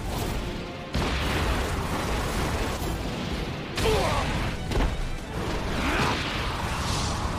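Anime fight sound effects: a dense rush of heavy punch impacts and blast-like bursts, kicking in suddenly about a second in, with short shouts near the middle and end.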